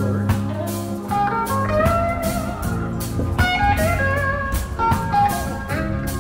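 Background music: a blues-style track led by a slide guitar whose notes glide up and down, over bass and drums.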